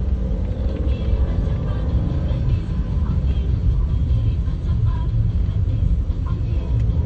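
Steady low rumble of a car's cabin on the move in slow city traffic: engine and road noise heard from inside the car.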